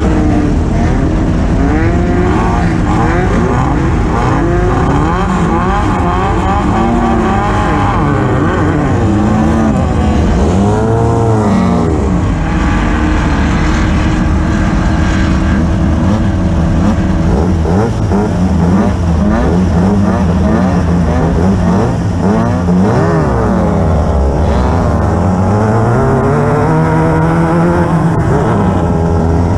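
Class 9 desert race car's engine running hard, its pitch climbing and dropping again and again as the throttle and gears change, over continuous rough driving noise.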